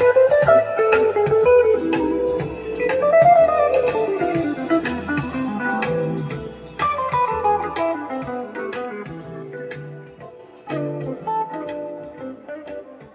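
Recorded music playing through ProAc Response 3.8 clone floor-standing loudspeakers: an instrumental passage with a run of notes falling in pitch over steady high ticks, fading toward the end.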